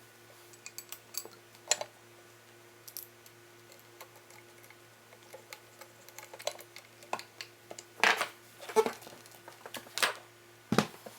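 Scattered small metallic clicks and taps of screws and a tool being worked into the body of a Mazzer Mini coffee grinder during reassembly, sparse at first, with several louder clacks in the last few seconds.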